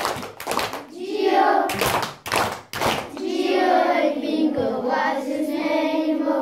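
Voices singing with sharp hand claps in the first three seconds, then one long held note from about three seconds on.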